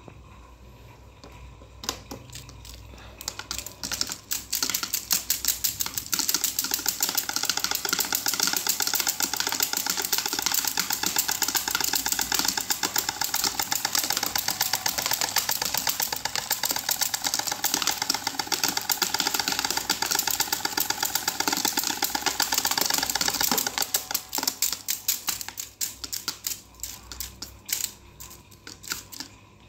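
Electric fan clattering: a rapid ticking that speeds up and grows louder over the first few seconds, runs steady, then slows and fades near the end as the fan spins down.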